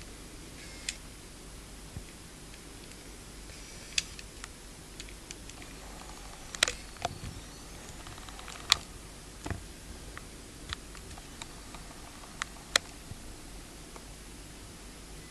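Camera handling noise: about a dozen sharp, irregular clicks and ticks over a steady hiss, the loudest near the middle.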